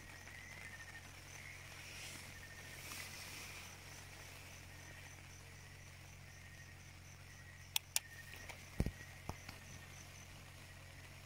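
Faint insects, likely crickets, chirping steadily in a regular pulsing rhythm of about four chirps a second, over a low steady hum. A few sharp clicks about two-thirds of the way through.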